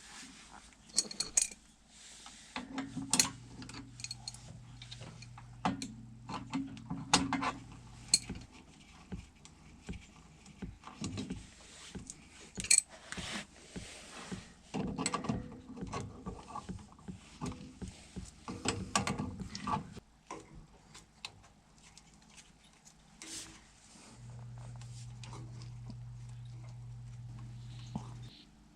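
Metal tools and parts being handled: irregular clinks, clicks and clanks of metal on metal. A low steady hum comes in twice, for several seconds each time.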